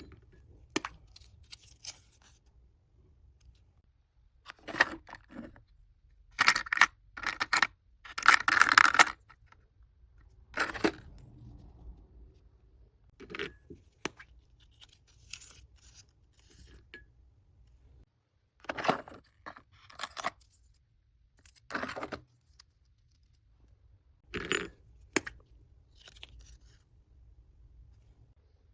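Packaging being handled and unwrapped: a string of short rustles and tearing sounds with quiet gaps between, the loudest cluster about a third of the way in.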